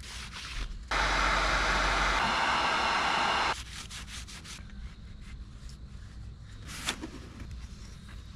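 Heat gun blowing steadily for about two and a half seconds, switching on and off abruptly, used to warm linseed oil and beeswax into a leather axe sheath. Before and after it, soft rubbing of a cloth and wax on the leather with a few light clicks.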